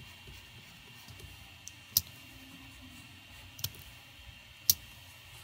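Three sharp clicks from a computer mouse, the first about two seconds in and two more over the next three seconds, over a faint steady hiss.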